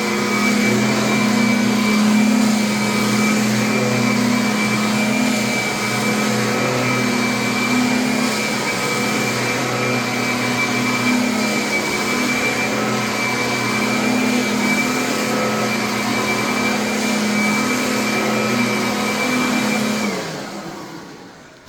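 Kirby vacuum cleaner running steadily with a high whine over a low hum, then switched off near the end, its pitch falling as the motor winds down.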